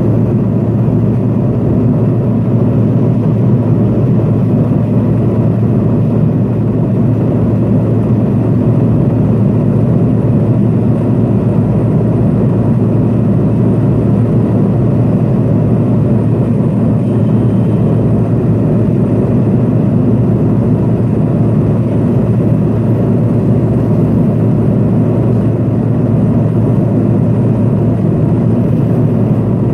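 Steady drone of a Pilatus PC-12's single Pratt & Whitney PT6A turboprop engine and propeller in cruise or descent, heard from inside the cabin, with a strong low hum under a rush of air.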